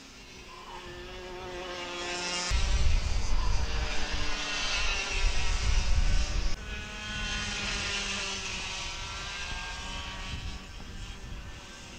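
High-pitched buzz of several ROK Mini karts' 60cc two-stroke engines racing around the circuit, their pitch rising and falling as they accelerate out of corners and pass. A loud low rumble comes in suddenly a few seconds in and cuts off abruptly a few seconds later.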